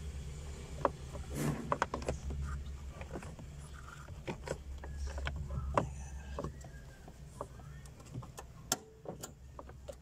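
Hard plastic console trim clicking and knocking as it is handled and fitted around the gear lever with its new USB charger socket: a scatter of short clicks and taps over a steady low hum.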